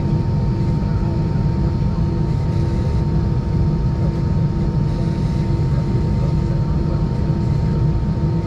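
Cabin noise inside an Airbus A320 on the ground, engines running at idle: a steady low rumble and hum with a thin steady tone above it. A quieter tone pulses on and off about twice a second.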